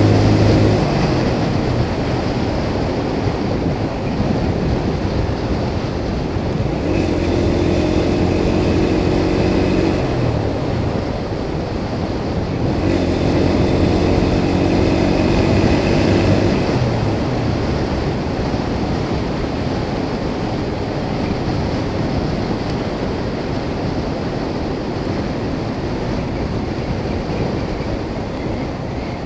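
Steady wind and road rush on a camera riding on a moving motorcycle, with an engine's steady drone coming up twice, about seven seconds in and again about thirteen seconds in, each lasting a few seconds.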